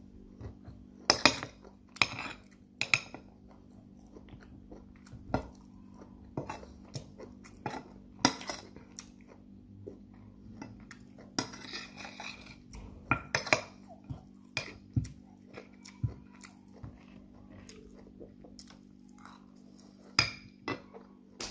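Metal fork clinking and scraping against a plate as food is cut and picked up, in irregular sharp clinks with a longer scrape about halfway through.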